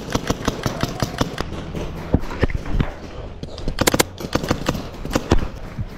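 Paintball markers firing a rapid, irregular string of sharp pops, several a second, with a few louder shots about four and five seconds in.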